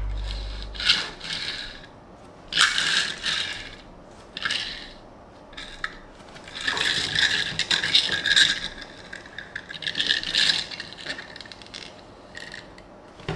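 Small cardboard Tomica toy box and die-cast toy car being handled, giving irregular scraping and rattling in several short bursts.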